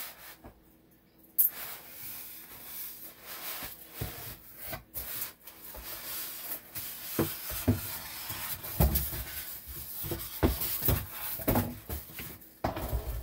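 Cardboard box and plastic wrapping rustling and scraping as a plastic-wrapped electric crepe maker is pulled out of its box, with irregular knocks and bumps; a sharp knock about a second in.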